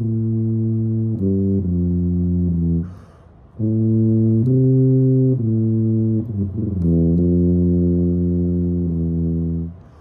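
A silver low brass instrument playing slow, improvised held notes, each sustained for a second or more and stepping between a few pitches, with short pauses for breath about three seconds in and near the end.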